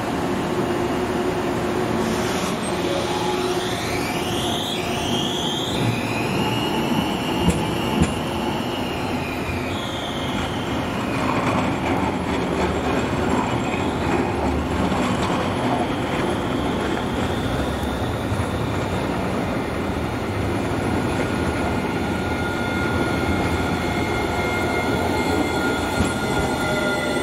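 Alstom Citadis trams on street-tram rails, with the wheels squealing in several high squeals that rise and fall during the first ten seconds or so. In the second half there is a steadier high whine as a tram moves off.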